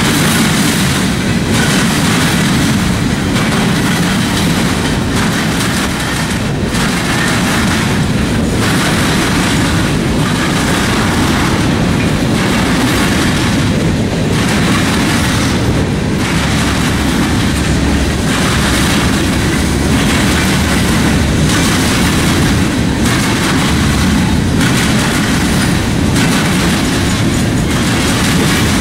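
Mixed freight train's cars (boxcars, covered hoppers and flatcars) rolling past close by: a loud, steady rumble and rattle of steel wheels on rail. The wheel noise pulses in a regular rhythm about every one and a half to two seconds.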